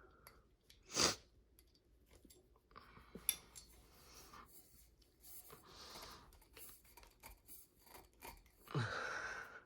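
Small metal clicks and scrapes as the set screws are worked out of a ceiling fan's down rod coupling with a flat-blade screwdriver. There is a sharp click about a second in and a longer scrape near the end.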